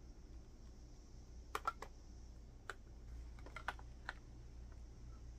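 Skincare bottles and jars being set down and arranged on a tray: faint, light clicks and taps, a quick cluster of three about a second and a half in, then a few scattered ones.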